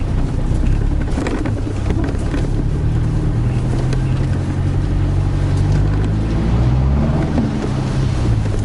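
Toyota Hilux engine running steadily at low speed off-road, heard from inside the cab, with a few short knocks and rattles from the truck lurching over rough ground.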